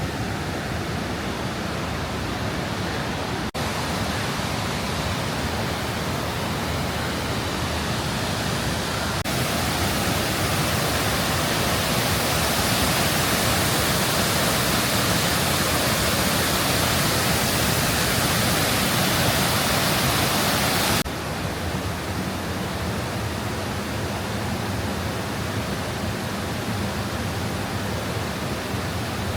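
Krka River waterfall making a steady rush of falling water. The rush suddenly grows louder and brighter about nine seconds in, then drops back abruptly about twenty-one seconds in.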